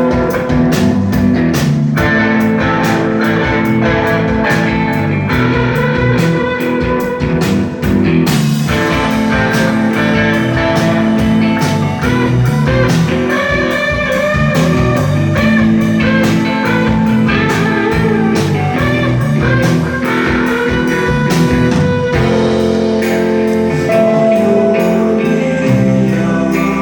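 Rock band playing an instrumental passage live, guitar to the fore over a steady drum beat. About eight seconds in, the cymbals open up bright and keep ringing.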